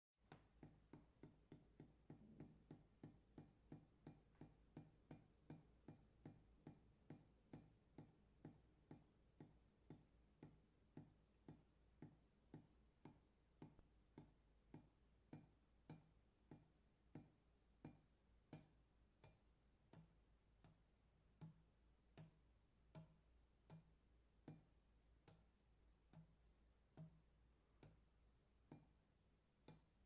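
Water dripping onto metal: quiet, regular drops, each a short plink with a ringing tail. They fall about three a second at first and slow to roughly one a second toward the end.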